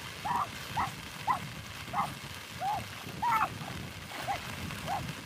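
An animal calling over and over, about nine short, high, arched calls in quick succession, each under a quarter of a second long.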